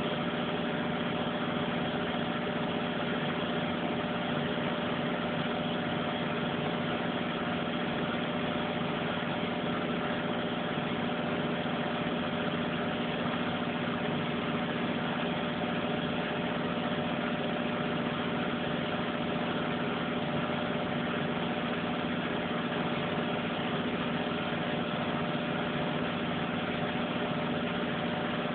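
Front-loading washing machine drum spinning at a steady speed in the final spin, not yet at its top speed of 1,400 rpm. The motor and drum make a steady, unchanging hum and whine.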